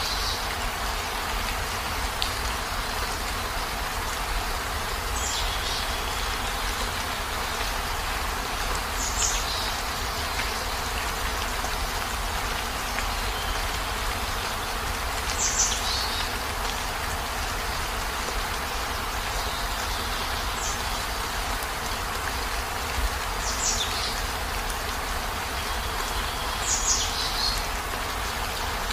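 Heavy rain falling as a steady hiss with a low rumble beneath it. Brief high-pitched sounds cut through it every few seconds.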